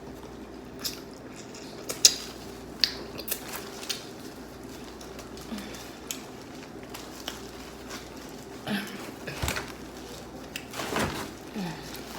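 Someone eating a seafood boil by hand: scattered sharp clicks and wet squishing noises of handling and biting the food, with a faint steady hum underneath.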